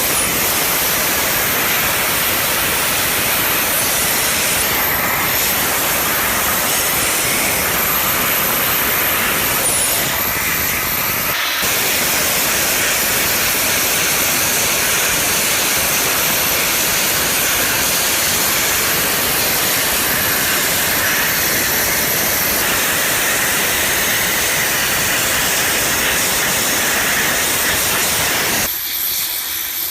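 Loud, steady rushing hiss of workshop machinery or tools. It dips briefly about eleven seconds in and drops away shortly before the end.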